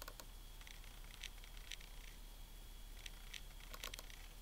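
Scattered soft clicks from a Macintosh PowerBook 5300cs as a folder is double-clicked open with its trackpad button, over a faint steady high whine.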